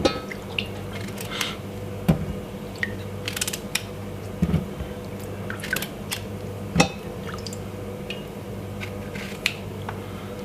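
Knife cutting new potatoes in half on a chopping board: soft crunching cuts with scattered clicks, and a few dull knocks of the blade on the board about two seconds apart, over a steady low hum.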